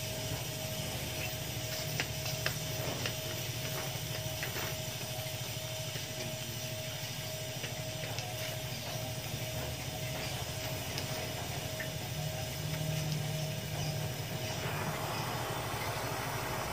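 Electric arc welding on a motorcycle exhaust muffler: a steady crackling hiss over a low hum and a steady high tone, with a few sharp ticks in the first few seconds.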